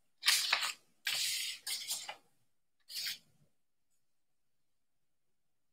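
Three short rustling, handling noises close to the microphone, the middle one the longest, then nothing.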